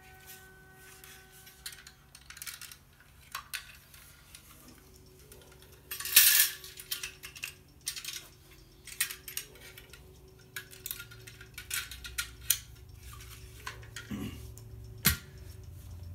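Eka folding bow saw being taken down and folded: short metal clicks and clinks of the blade and frame, with a louder rattle about six seconds in and a sharp click near the end.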